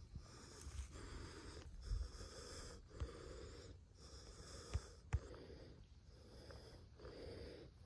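Heavy, quick breathing close to the microphone, a breath about every second, panting after a climb. A few soft knocks come between the breaths.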